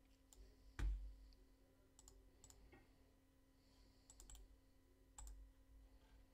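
Faint, scattered clicks of a computer mouse and keyboard, with a soft thump a little under a second in.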